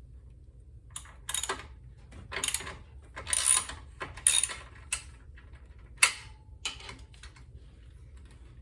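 Hand socket ratchet clicking in short rasping bursts, about eight strokes, as a 14 mm fastener is worked loose.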